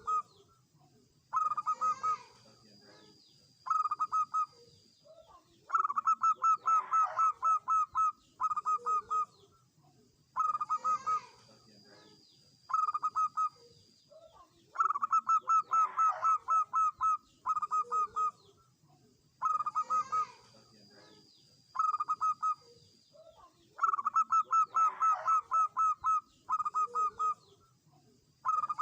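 Zebra dove (perkutut) cooing: phrases of rapid, evenly spaced staccato notes, a longer run of about a dozen notes alternating with shorter bursts, repeated every few seconds.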